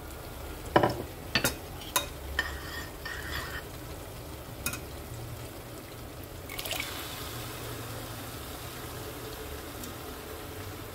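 Turkey stock poured from a ceramic bowl into a pot of frying tomato stew base, with a few sharp clicks in the first five seconds and a fuller pouring hiss from about six and a half seconds in.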